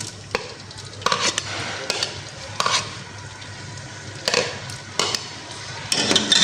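Onion paste frying in hot oil in a pan while a spoon stirs it, scraping against the pan every second or so over a steady sizzle that grows louder near the end.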